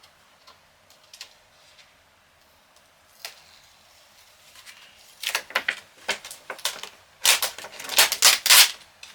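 Packaging being pulled off by hand, with a few faint clicks and then, from about halfway in, a run of loud crinkling, rustling bursts.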